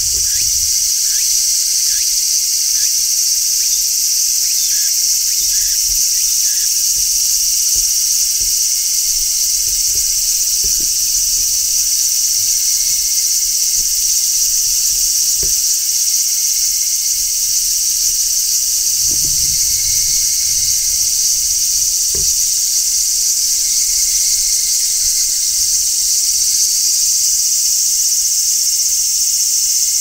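Large brown cicada (Graptopsaltria nigrofuscata) singing: a loud, continuous, high-pitched sizzling drone with no breaks.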